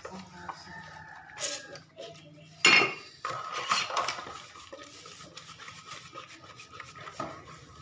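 Dishes and cutlery clinking and clattering as they are washed by hand at a kitchen sink, with the loudest clatter a little under three seconds in.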